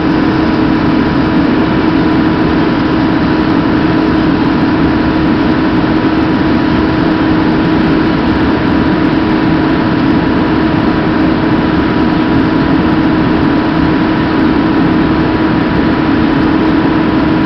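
An engine running steadily at a constant speed, with a steady low hum over an even rumble.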